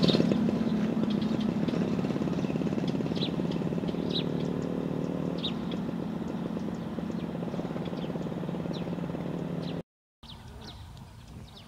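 A small engine running with a rapid, even putter, loudest at first and slowly fading as it moves off, with small birds chirping over it. It cuts off suddenly near the end, leaving only quieter bird chirps.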